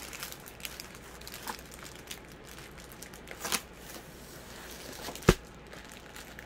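Clear plastic sleeve crinkling and rustling as a plastic-wrapped rolled diamond-painting canvas tube is handled and pulled from its cardboard box, with a single sharp knock about five seconds in as the tube is set down on the board.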